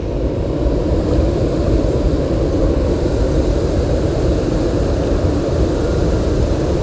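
A steady low rumbling noise with no breaks or distinct events.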